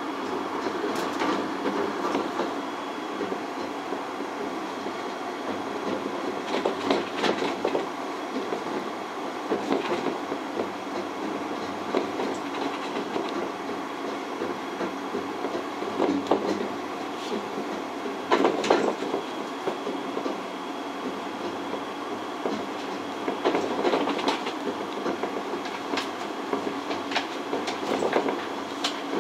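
A Skyrail rope-driven suspended transit car running along its elevated track, heard from the car: a steady running rumble broken by short clacks and knocks every few seconds.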